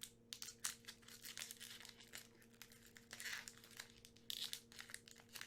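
Foil wrapper of a Pokémon TCG booster pack crinkling and tearing as it is pulled open by hand, in quick irregular crackles.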